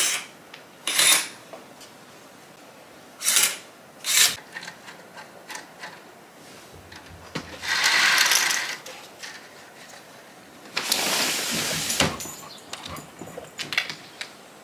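Objects being handled: four short sharp knocks or rattles close together, then two longer rubbing or scraping noises of about a second each, and a few small clicks near the end.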